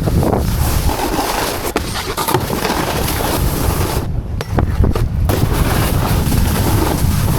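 Wind rushing over a helmet camera's microphone as a snowboarder rides, with the board scraping over snow.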